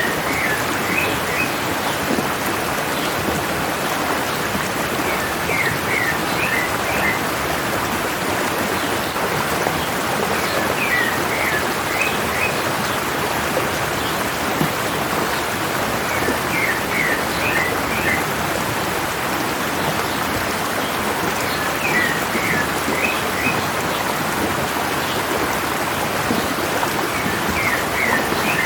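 Mountain stream running steadily, with a bird repeating a short phrase of quick high notes about every five and a half seconds.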